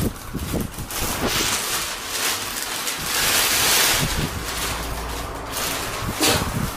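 Plastic shopping bag rustling and crinkling as a wrapped gift is pulled out of it. The rustling is loudest about halfway through, with a brief sharp crinkle near the end.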